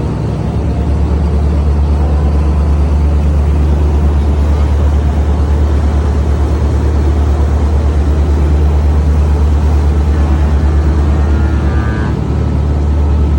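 Motorboat engine running steadily at speed, a loud low drone with an even pulse and a hiss of wind and water over it; the drone eases briefly near the end.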